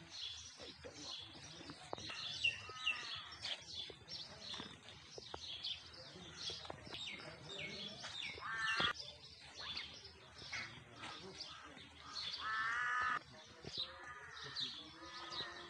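Birds chirping, with many short falling calls throughout and two longer, louder calls about eight and twelve seconds in.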